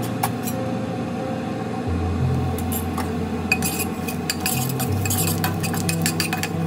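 Steel spatula clinking and scraping against a kadhai as whole spices are tipped from a bowl into hot oil and stirred, with quick clinks coming thick in the second half.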